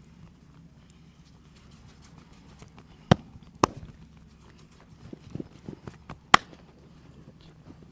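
Sharp snapping cracks from a head and back massage. Two loud snaps come about half a second apart near the middle, then a quick run of softer taps, then a final, loudest snap. A steady low hum runs underneath.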